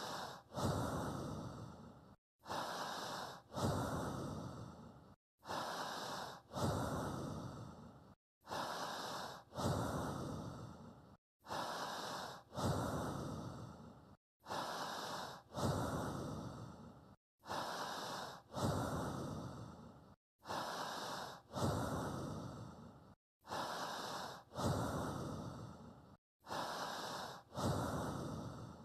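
Recorded human breathing laid down as a steady breathing guide. Each cycle is a short breath followed by a longer one that fades away, with a brief dead-silent gap before the next. The cycle repeats about every three seconds.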